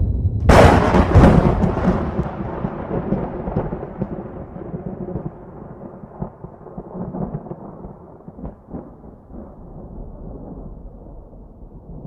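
Close lightning strike: a sharp thunderclap, cracking twice in quick succession about half a second in, then a long rolling rumble that slowly dies away.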